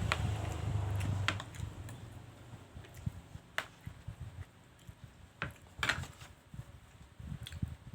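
Close-miked eating noises: a low rumble in the first second and a half, then scattered sharp clicks and taps, roughly one a second.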